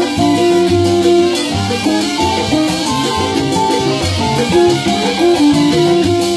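Salsa music, with held melodic notes over a bass line and a steady percussion beat.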